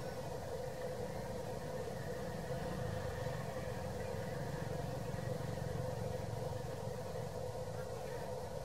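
Steady low rumble with a constant hum, mechanical and engine-like; it holds level throughout with no sudden sounds and no monkey calls.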